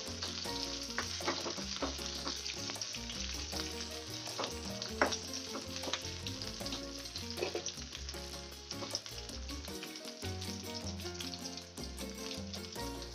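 Ginger pieces and garlic cloves frying in shallow oil in a metal kadai, with a steady gentle sizzle and the repeated clink and scrape of a steel ladle stirring them against the pan.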